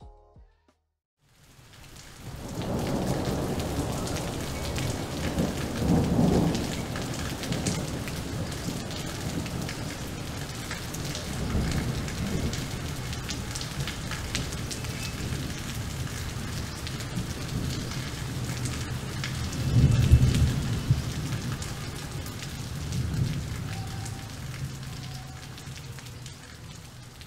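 Steady rain with rolling thunder that swells several times, loudest about twenty seconds in.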